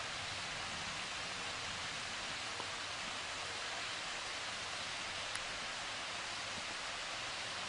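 Steady rushing hiss of falling water from a small waterfall, even and unbroken, with a couple of faint ticks.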